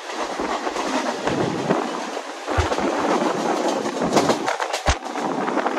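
Mumbai suburban local train (electric multiple unit) running along the track: a steady rushing rumble with irregular sharp knocks and clatter from the wheels over the rails.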